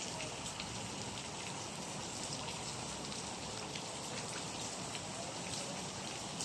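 Steady rain falling, a constant hiss with scattered small drop ticks.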